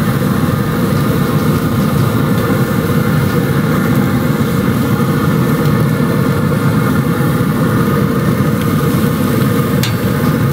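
Steady mechanical whir of a pellet grill running hot, with a ribeye searing under a steak press on the grill grates. A short metallic click near the end as the steak press is taken by its handle.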